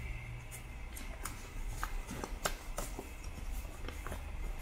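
A folded glossy paper leaflet being unfolded and flattened by hand: irregular light crackles and ticks of stiff paper.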